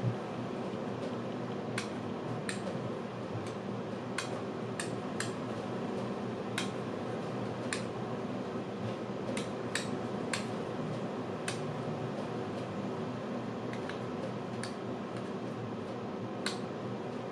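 Small sharp clicks, about one a second and unevenly spaced, over a steady room hum: buttons being pressed to change the colour of the lighting.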